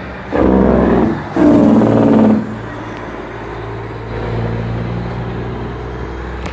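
Flatbed semi-truck passing close by: two loud bursts of sound, each about a second long, in the first couple of seconds, then the steady low drone of its engine as it goes past.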